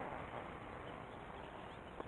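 Faint, steady outdoor ambience on open water, an even hiss with no distinct event.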